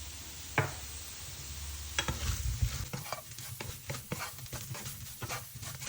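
Potato pieces frying in oil with a steady sizzle while a spatula stirs the freshly added spice powders through them, knocking and scraping against the pan in quick clicks from about two seconds in.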